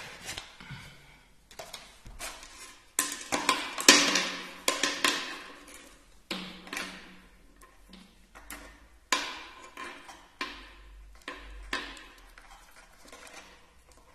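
Packaging being handled: crinkling of a clear plastic bag and light knocks of an earphone cable against cardboard, a string of short crackles and taps, the loudest about four seconds in.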